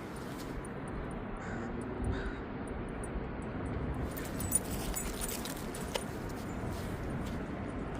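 Wind rumbling steadily on the microphone, with a couple of faint short whines about one and a half and two seconds in and a patch of clicks and rustling around four to five seconds in.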